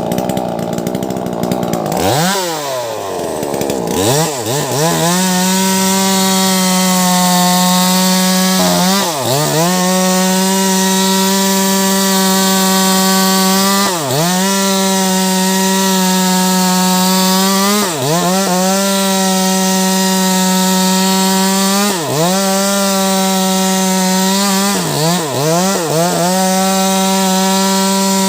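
Wagner 580 two-stroke chainsaw with a 16-inch bar cutting through a thick log. About two seconds in, the engine drops almost to idle and revs back up. It then runs steadily at high revs, with a brief dip in speed every four or five seconds as the chain loads in the wood.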